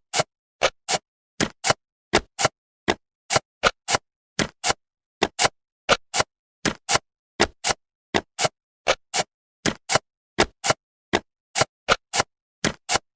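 Sharp, dry clicks in regular pairs, a pair about every 0.7 s with silence between: a cartoon sound effect of jigsaw puzzle pieces snapping into place one after another.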